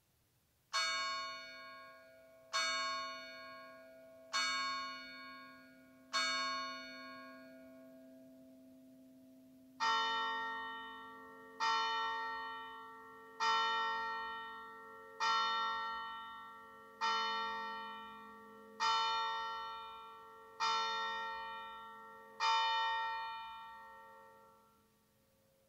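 Church bells struck by hand with the clapper (pritrkavanje): four evenly spaced strokes on one bell, then after a short pause eight strokes on a lower-pitched bell, each stroke ringing out and fading.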